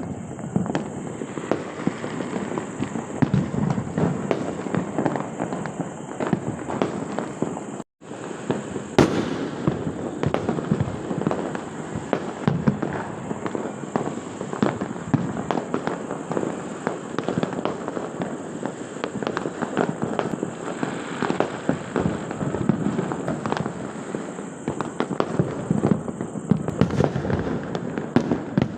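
Many firecrackers and fireworks going off at once, a dense, continuous crackle of pops and bangs near and far. The sound cuts out for an instant about eight seconds in.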